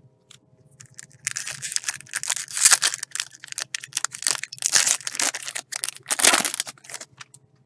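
Foil wrapper of a Topps Chrome baseball card pack crinkling and tearing as it is opened by hand, in several loud bursts over a few seconds.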